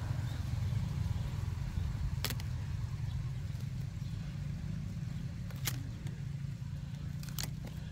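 Pruning shears snipping three times, a few seconds apart, over a low steady rumble.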